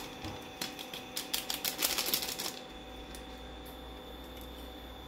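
Foil spice sachet being tapped and shaken out over a plate: a quick run of light, crinkly clicks lasting about two seconds, then only a faint steady hum.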